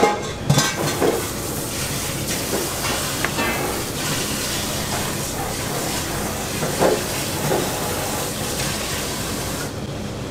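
A steady hiss of kitchen background noise that stops abruptly near the end. Over it come a few soft taps and rustles as a towel is pressed and rubbed over raw puffer fish flesh on a plastic cutting board.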